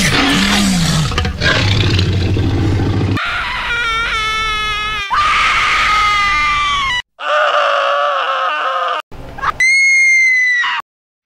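A string of screaming sound effects spliced together: several different pitched screams follow one another, each one cut off abruptly, with short silent gaps between the last few.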